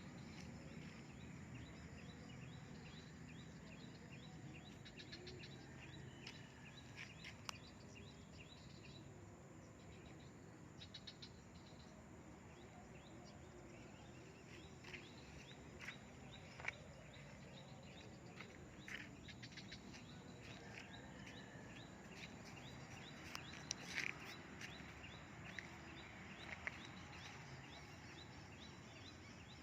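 Faint outdoor ambience: a low steady hiss with scattered short bursts of high chirping from small birds or insects and a few soft clicks.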